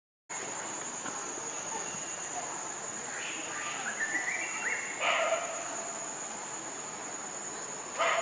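Steady high-pitched insect drone, with a few short animal calls over it around the middle and again near the end.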